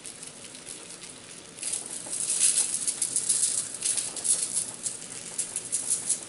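Cajun seasoning being shaken from a can of seasoning, the grains rattling in the can with a quick hissing patter that grows much louder about a second and a half in.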